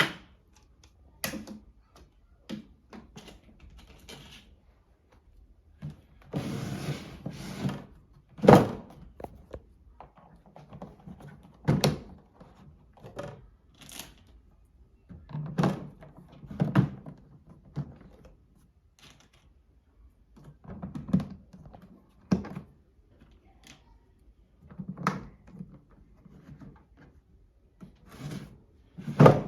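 Plastic parts of a toy washing machine being handled and fitted together: irregular knocks and clicks, a few of them sharp and loud, with short spells of rustling and scraping.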